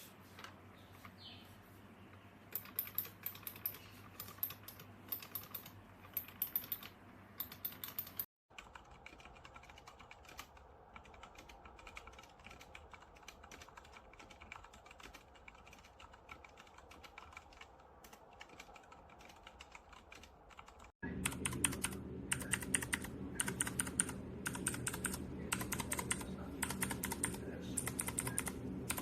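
Typing on a mechanical keyboard fitted with Outemu switches: rapid key clicks in three separate runs. The middle run is much quieter than the other two, and the last is the loudest.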